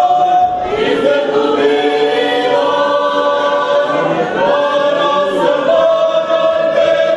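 A choir of young voices singing a hymn together, holding long notes that move from pitch to pitch every second or two.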